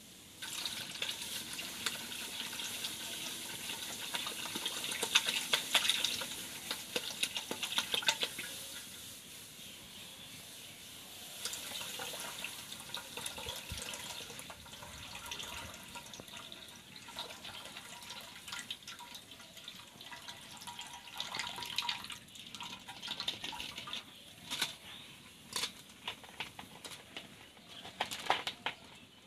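Milk poured in a stream from a plastic bottle into an aluminium wok already holding milk, splashing and gurgling, loudest a few seconds in and thinner later. Scattered sharp clicks come in near the end.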